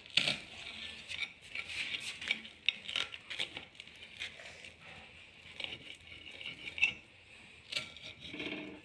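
Knife sawing through pan-toasted bread, crunching and scraping against a ceramic plate in a run of short, irregular strokes.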